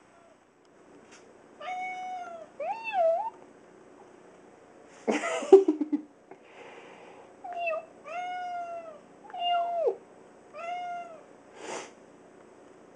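A domestic cat meowing about six times in short calls, one with a wavering pitch. A brief loud noise comes about five seconds in, and a shorter one near the end.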